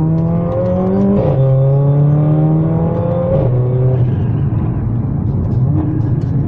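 Car engine heard from inside the cabin, pulling hard. Its pitch climbs and twice drops sharply as it changes up a gear, about a second in and again about three and a half seconds in, then it settles to a steady run over road rumble.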